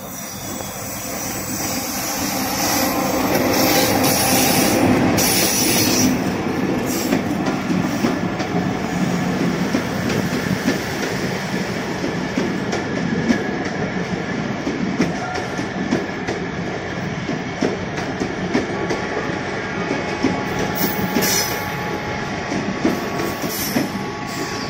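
Diesel-hauled Bangladesh Railway intercity passenger train passing close by on the next track. It gets louder as the locomotive draws level about four seconds in, then its coaches run by with a steady clatter of wheels over rail joints and some wheel squeal.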